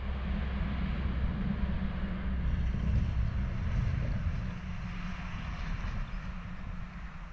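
Wind buffeting the camera microphone in open country: an uneven low rumble under a steady hiss, swelling a little about three seconds in and easing toward the end.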